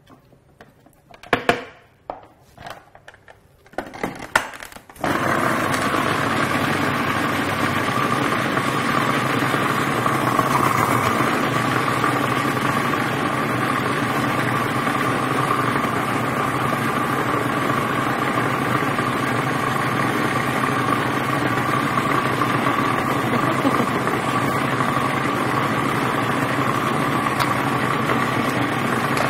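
A few knocks and scrapes of a wooden spatula in a plastic food processor bowl, then, about five seconds in, the food processor's motor starts and runs steadily at one speed, blending avocado into pesto.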